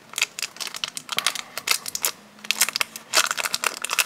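Clear plastic film around a deck of Pokémon cards crinkling as hands handle and peel it. The crackles come irregularly and grow thicker near the end.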